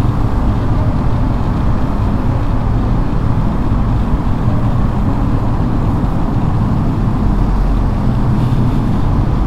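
KTM 390 Adventure's single-cylinder engine running at a steady pace while riding, under steady wind and road noise.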